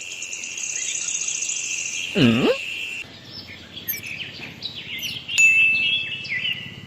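Birds chirping, many short repeated calls, with a steady high trill for the first two seconds. About two seconds in, a single lower animal call swoops down in pitch and back up.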